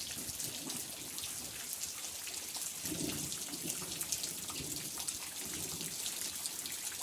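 Light rain falling steadily: an even hiss with many small drops ticking. A few faint low murmurs come and go in the middle.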